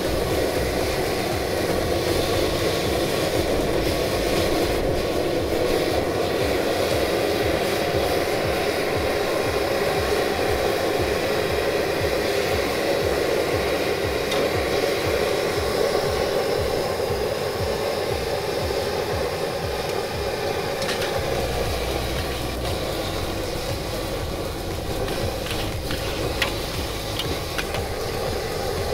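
Gas wok burner of a hawker stall running at full flame, a steady rushing noise under a wok of frying rice vermicelli. A few light metal clinks of the ladle and spatula against the wok near the end.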